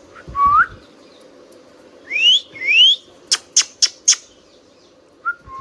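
Indian ringneck parrot whistling and chirping: a short rising whistle, then two higher rising whistles about two seconds in, followed by four quick sharp chirps, and another short rising whistle near the end.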